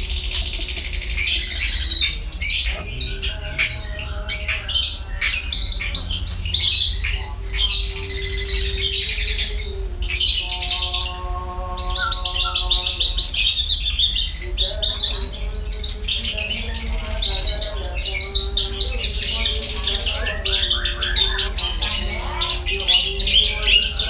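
Javan bushlark (branjangan, Mirafra javanica) singing in its cage: a fast, almost unbroken stream of high chirps, trills and squeaky notes, with a short lull about ten seconds in.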